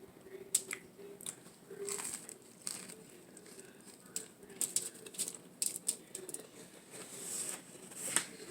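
Someone eating a sandwich up close: chewing and handling the food, with scattered soft clicks and crinkles.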